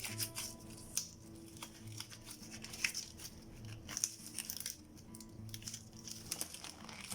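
Scattered crinkling and light clicks of disposable gloves being handled and pulled on, over soft background music.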